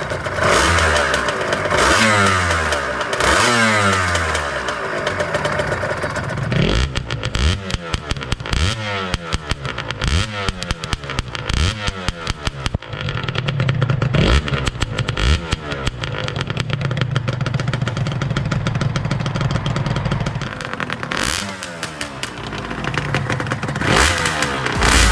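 Honda NSR250SP's two-stroke V-twin engine revving, its pitch rising and falling again and again, with a rapid crackle from the exhaust, then running more steadily in the second half.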